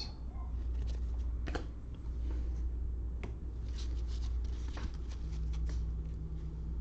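Trading cards being handled and flipped one by one, with scattered soft rustles and clicks, over a steady low hum.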